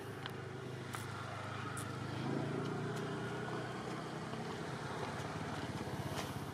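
Steady low motor hum, like an engine running at a distance, with a few faint high ticks over it.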